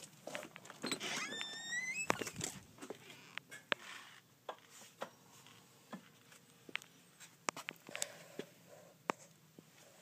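Irregular sharp clicks and pops from wood pellets burning in a biomass camp stove, with a short rising squeak about a second in.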